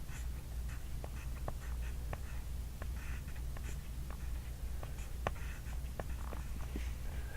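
Handwriting on a workbook page: short strokes and taps of the writing tip on paper, with brief scratchy sounds, over a steady low hum.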